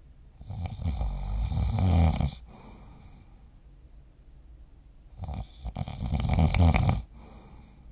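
A sleeping person snoring: two long, fluttering snores about four seconds apart. Each swells louder and then stops abruptly, with quiet breathing between them.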